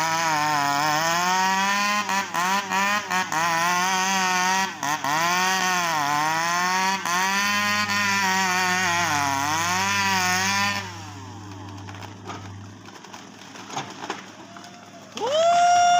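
Two-stroke chainsaw cutting a sengon trunk, its engine pitch rising and falling repeatedly as it bogs under load and revs free; about two-thirds of the way through it stops, leaving a low engine hum. Near the end a short, loud high-pitched tone sounds.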